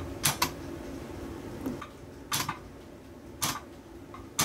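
A homemade 12 V battery spot welder firing through copper electrodes onto nickel strip on cylindrical lithium-ion cells: sharp snaps as each weld is made, a quick double snap near the start, then single ones about a second apart, four welds in all.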